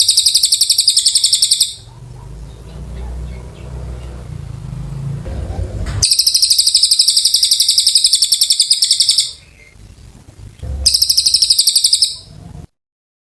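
Cililin bird singing: three bouts of very rapid, high-pitched trilled notes. The first starts at the beginning, the second comes about six seconds in and is the longest, and the third is a short one near the end. A low rumble runs in the gaps between the bouts.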